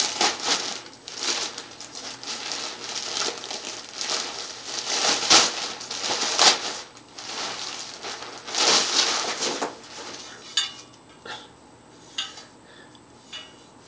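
Clear plastic wrap rustling in repeated irregular bursts as it is pulled and bunched off a bicycle wheel, growing quieter after about ten seconds with a few short clicks.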